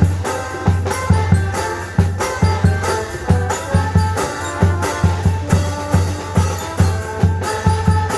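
Music with a steady drum beat, about two beats a second, under a melody.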